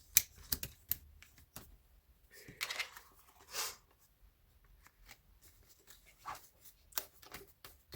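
Paper pages of a disc-bound planner being handled: scattered light clicks and a few soft rustling swishes as the pages are shuffled and pressed together.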